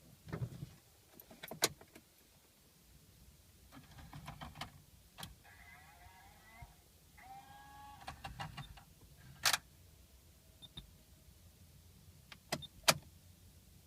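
Sharp clicks, with a small electric motor whirring twice for about a second and a half each, pitch rising slightly, in a 2007 Scion tC that will not start.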